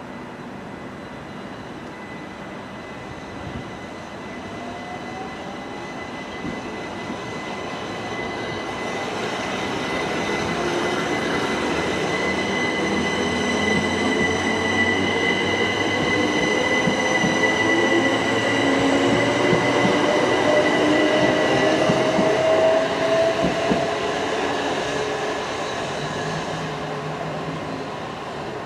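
Southern Class 377 Electrostar electric multiple unit running along the platform, its motor whine rising slowly in pitch as the sound builds to its loudest about two-thirds of the way through, with a steady high whistle over the rumble, then fading near the end.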